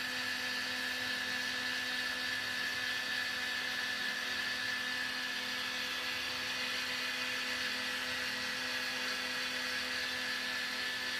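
Cotton candy machine running: the spinning head turns at a steady speed, giving an even whir with a constant hum over a hiss.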